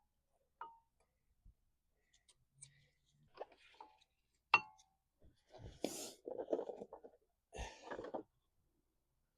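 Scattered light clicks, then a sharp ringing metallic clink, followed by two spells of rattling and scraping as tools and brake parts are handled on a car's front brake.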